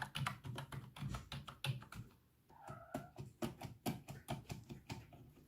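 Typing on a computer keyboard: a quick, irregular run of key clicks, a brief pause, then more scattered keystrokes. A short chirp-like call sounds about two and a half seconds in.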